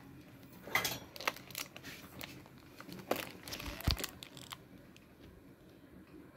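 Handling noises: a few light clicks and short rustles, starting about a second in and stopping past the middle, over faint room tone.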